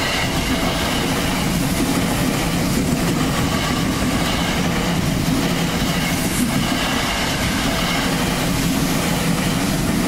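Electric commuter train passing over a level crossing: a loud, steady rush of wheels running on the rails, with some clatter from the wheels. Underneath, the crossing's warning bell keeps ringing.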